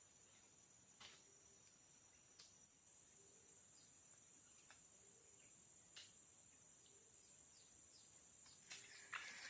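Faint tropical forest ambience: a steady high-pitched insect drone, with scattered sharp clicks and a soft low note repeating every couple of seconds.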